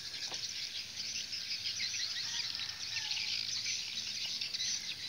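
A dense, steady chorus of high, rapid chirping from insects and small birds in marshy grassland.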